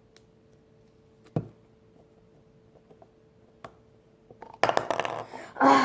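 Small clicks and ticks of a plastic UHU glue bottle's cap being fiddled with while trying to close it, with one sharp click about one and a half seconds in. Louder rustling and handling noise follows near the end, over a faint steady hum.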